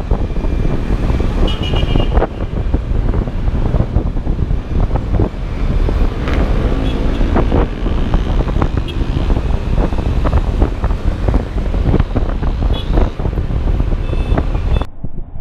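Wind buffeting the camera microphone, mixed with traffic and road noise, on a scooter riding at about 40 to 48 km/h in city traffic. The sound is a dense, crackling rumble that cuts off abruptly near the end.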